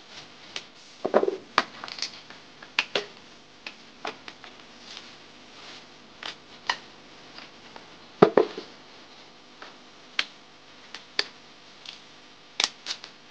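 Cassava roots being peeled by hand and with a large knife: irregular sharp snaps, cracks and scrapes as the thick skin is split and pulled away, with peel dropping onto a woven plastic sack. The loudest snaps come about a second in and about eight seconds in.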